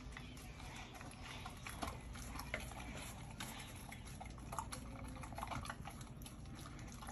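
Pit bull eating raw meat from a stainless steel bowl: wet chewing and smacking with irregular clicks and knocks against the bowl.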